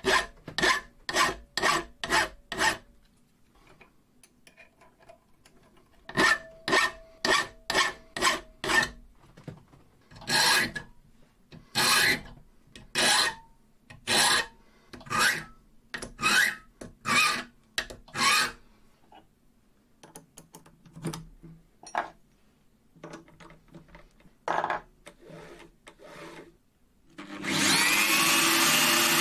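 Hand file stroking across the steel tip of a screwdriver shaft, rounding off its edges into an awl point. First come quick runs of about two strokes a second, then slower strokes about one a second, fading near the end. Near the end a power tool motor spins up and runs steadily.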